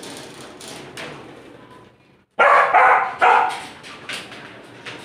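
Dog barking three times in quick succession, loud and sharp, about halfway through.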